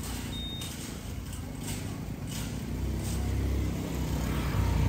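A motorbike engine running close by, growing louder toward the end, with a few short rustling scrapes in the first half.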